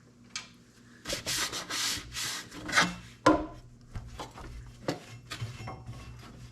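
Rubbing and scrubbing strokes as dirt is cleaned off a tractor's air filter housing parts, about two seconds of it, then a sharp click and lighter knocks of the parts being handled.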